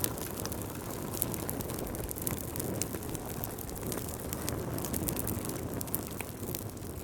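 Wood fire burning in a fireplace: a steady low rushing of the flames with scattered sharp crackles and pops from the burning logs.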